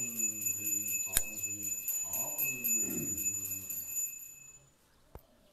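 A small bell rung rapidly and without a break, with a man's low voice beneath it. The ringing and the voice stop about four and a half seconds in.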